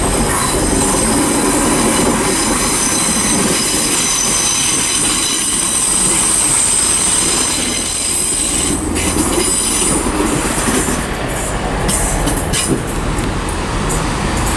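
Class 165 diesel multiple unit pulling into the platform with a high squeal of several steady tones over the first eight seconds or so. The squeal then fades into a run of sharp clicks and knocks.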